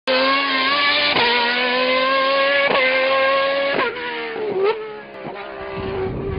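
Go-kart engines running at high revs as karts drive around the track, a steady high engine note that dips sharply in pitch several times. The note fades about four seconds in and builds again near the end.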